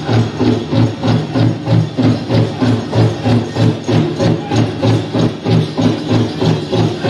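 Powwow drum struck in a steady, even beat of about three strokes a second, accompanying a prairie chicken dance.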